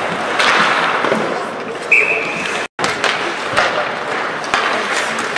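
Ice hockey play in an arena: skates scraping the ice and sticks and puck knocking, over a steady murmur of voices. About two seconds in comes a short, high, steady tone, and the sound cuts out for an instant just after it.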